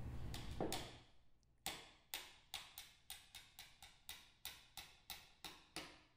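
Hammer tapping a driver sleeve to seat the eccentric cam onto the high-speed shaft of a Sumitomo Cyclo cycloidal gear reducer. There are about a dozen light, quick, sharp taps at about three a second, starting about a second and a half in.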